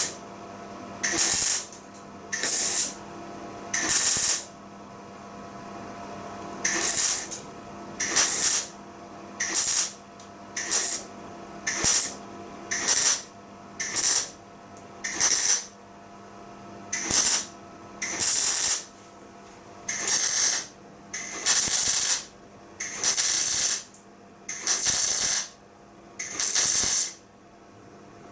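MIG welder laying a string of short tack welds on a car floor panel: about nineteen brief bursts of crackling hiss, one every second or two, over a steady hum. The welds are kept short to keep heat out of the thin panel so it does not warp.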